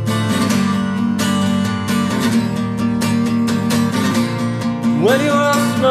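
Music: a song built on a strummed acoustic guitar, with a singing voice sliding in near the end.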